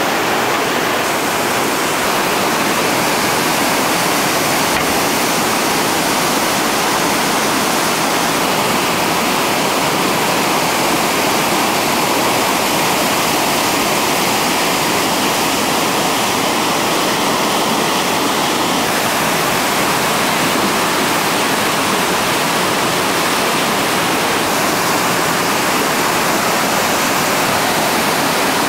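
Steady, loud rush of whitewater pouring over a seven-foot river waterfall and churning through the rapid below it.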